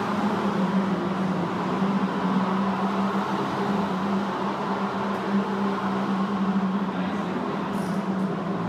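Go-karts running around an indoor track out of sight, a steady engine drone that eases slightly near the end.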